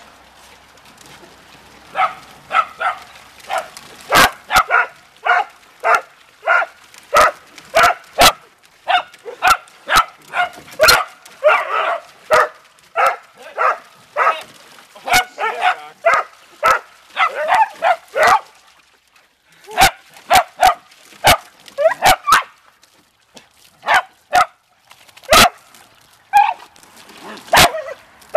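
Dachshunds barking over and over, short sharp barks about one or two a second with a few brief pauses, as they play and snap at a stream of hose water.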